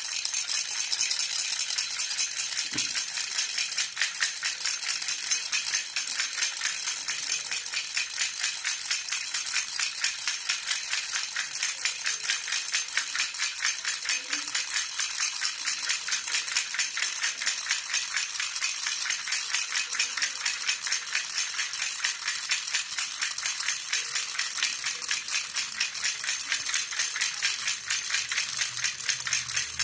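Jhunjhuna baby rattle shaken steadily and rapidly, a dense, high-pitched rattling that does not let up.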